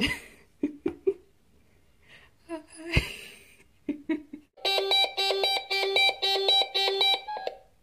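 Video door-entry intercom ringing with a fast-repeating electronic warble for about three seconds, starting a little past halfway. This is the call from the entrance downstairs. A few knocks and handling noises come before it.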